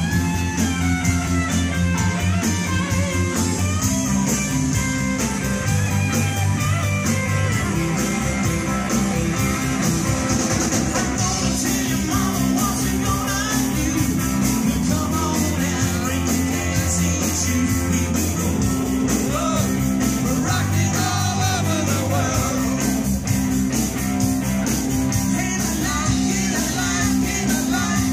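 Live rock band playing: electric guitars, bass and drums in a steady driving rhythm, with singing over the top.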